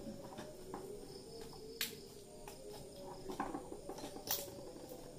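Scattered clicks and knocks of hands handling computer hardware while a graphics card is worked loose from its PCIe slot, the loudest about two, three and a half and four seconds in, over a faint steady hum.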